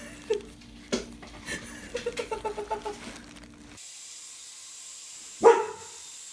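A dog barking: a quick run of short yips in the first few seconds, then a single loud bark about five and a half seconds in.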